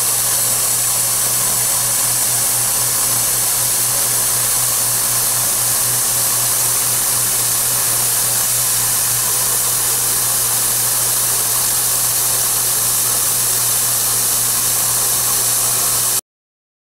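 CNC milling machine's end mill roughing out a mold cavity in a metal block: steady, loud machining noise with a strong high hiss and a low hum underneath. It cuts off suddenly near the end.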